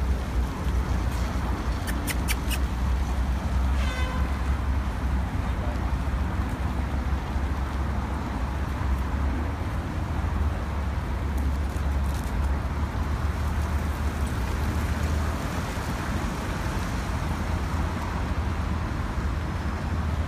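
Steady city ambience: low traffic rumble under an even hiss of spraying sprinkler water. A few sharp clicks come about two seconds in, and a brief pitched call about four seconds in.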